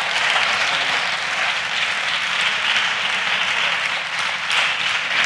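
Applause from a group of seated people in a parliament chamber: steady, dense hand clapping.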